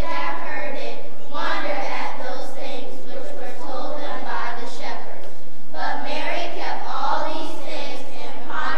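Children's choir singing in long phrases with short breaks between them.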